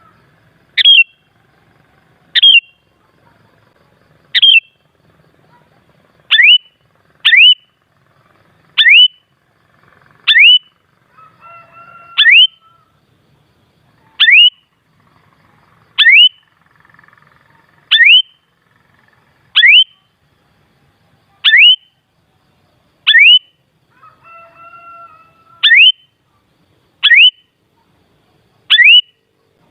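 Sooty-headed bulbul giving a short, sharp rising call, repeated about every one and a half to two seconds, with fainter lower bird notes between the calls.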